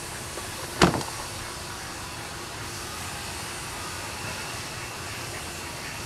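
Steady background noise with a single sharp knock about a second in.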